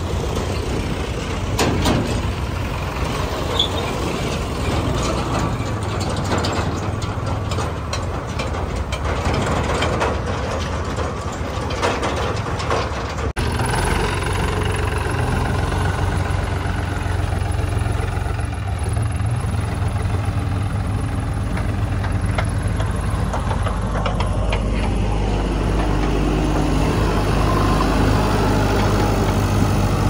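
Farm tractor diesel engines running, with many short clattering rattles as tractors pull trolleys past. About 13 seconds in, the sound cuts to a steadier, deep engine hum with fewer rattles.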